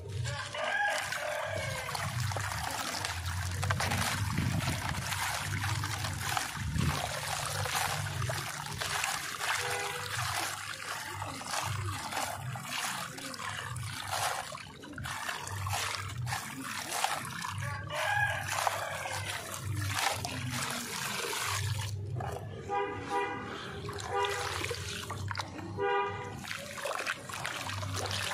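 Hands squishing, squeezing and kneading wet, gritty sand-and-cement paste in a plastic tub: a steady wet, crackly squelching with small splashes. Near the end a vehicle horn honks in a few short beeps, then once more.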